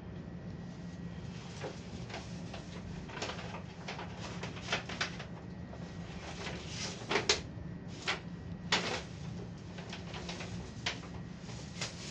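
Toshiba passenger elevator car travelling upward: a steady low hum inside the car, with scattered sharp clicks and knocks, the loudest a quick pair about seven seconds in.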